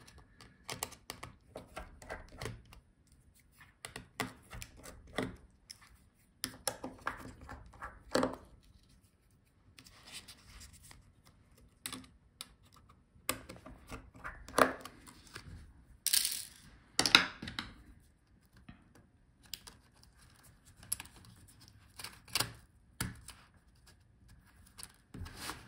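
Scattered small metallic clicks, taps and short scrapes of a precision screwdriver and fingertips working on the metal touchpad bracket of a Lenovo ThinkPad X13 Gen 2 palmrest as its screws are taken out and its cable is freed. A louder rasping scrape comes about two-thirds of the way through.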